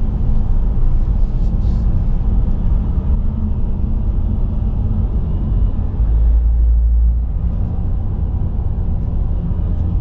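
Car driving along, a steady low road and engine rumble heard from inside the cabin, swelling for about a second a little past the middle.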